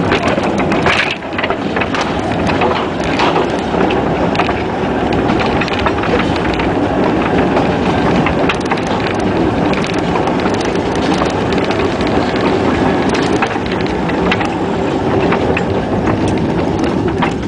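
Steel-wheeled narrow-gauge mine car rolling and rattling along the track behind a 1926 Whitcomb 4-ton storage battery locomotive, heard from on board, with frequent clanks and clicks.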